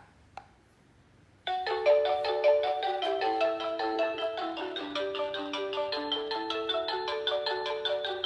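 Two light clicks as the doorbell call button is pressed. About a second and a half later the Tmezon 2-wire video intercom starts ringing: an electronic ringtone melody of quick, evenly paced notes that keeps repeating.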